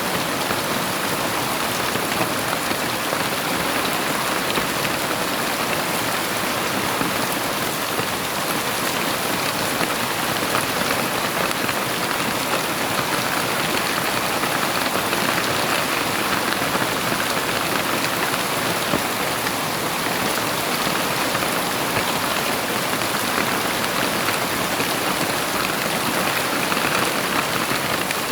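Heavy rain falling steadily, a dense even hiss of drops on surfaces with no thunder.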